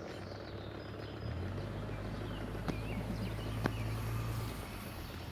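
Quiet outdoor background: a low steady hum sets in about a second in and fades near the end, with two faint clicks and faint bird chirps.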